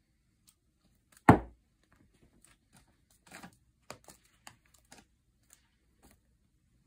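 A cat playing on a pile of clothes: one loud, sharp thump about a second in, then a scattering of short rustles and scratches on the fabric.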